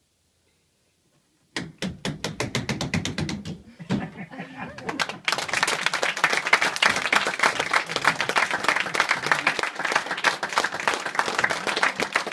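Near silence, then about a second and a half in a small audience breaks into applause, thin and scattered at first and growing into steady, dense clapping from about five seconds in.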